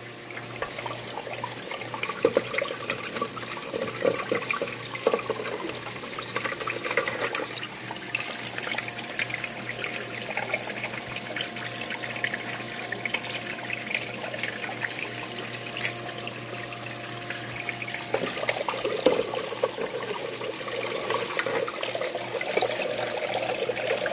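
Water running steadily down an aluminium hex-mat sluice, with scattered gravelly splashes as 20-mesh gold tailings are fed in, and a steady low hum beneath.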